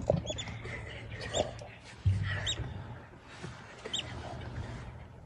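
A brief snarl right at the start, then short high-pitched chirping calls repeating about once a second over a low background.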